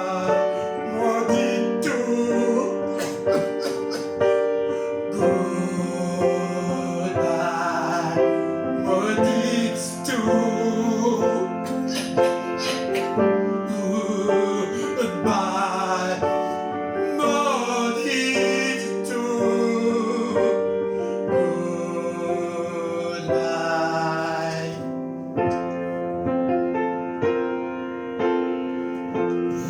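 A song with a voice singing over piano or keyboard accompaniment. The singing drops out about 25 seconds in, leaving the keyboard playing alone.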